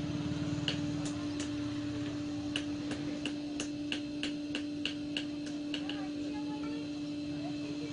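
Background music with a dry ticking beat, about three ticks a second, over a steady low drone.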